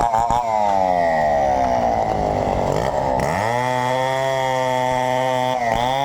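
Chainsaw running at high revs. Its engine pitch sags for a couple of seconds as the chain bogs down cutting into wood, then climbs back and holds steady once the cut eases.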